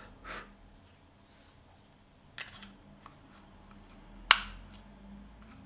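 Light plastic clicks and handling knocks while a 9-volt battery is fitted into a Rode VideoMic's battery compartment: a few scattered clicks, with one sharp click about four seconds in.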